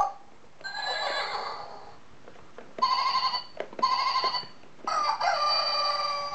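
Electronic toy farm tractor with a trailer of pressable animal figures playing recorded farm-animal calls as the figures are pressed: a call about half a second in, two short calls around three and four seconds in, then a longer call that rises and then holds, like a rooster crow, near the end.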